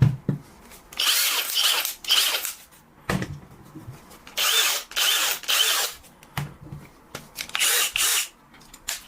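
Electric drill run in short bursts, about three times, each released abruptly so the motor brakes to a stop with a clacking knock. The clack comes from the spindle lock: its three small rollers sit with some clearance and knock when the brake stops the spindle.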